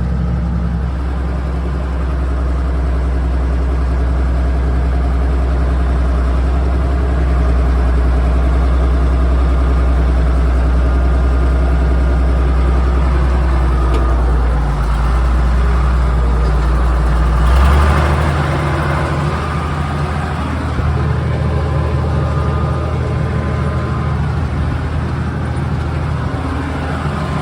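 Farm tractor engine running steadily while pulling a planter. About two-thirds of the way through there is a brief rush of noise and the deep engine hum changes to a different note.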